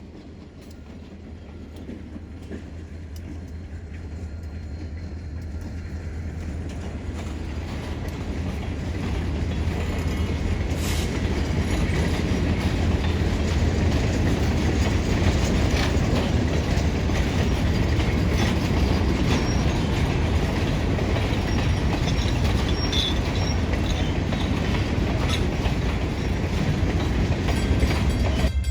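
Diesel-hauled freight train approaching and rolling past, a deep rumble growing steadily louder over the first ten seconds or so, then a steady rolling rumble with wheels clattering over the rail joints.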